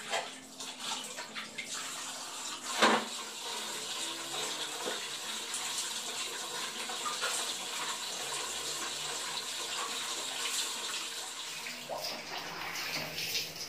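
Water splashing and running as faces are rinsed with water scooped from a plastic bucket with a dipper, with one louder splash about three seconds in.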